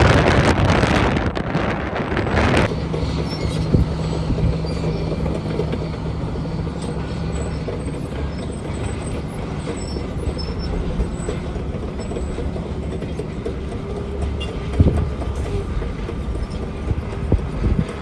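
Strong wind blasting the microphone, which cuts off abruptly about three seconds in. After it comes the steady low diesel rumble of a crawler bulldozer working nearby, with a few isolated knocks.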